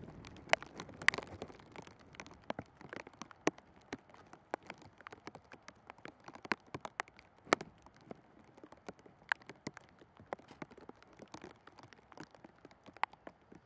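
Scattered sharp taps and clicks at irregular intervals, several a second, over a faint steady hiss.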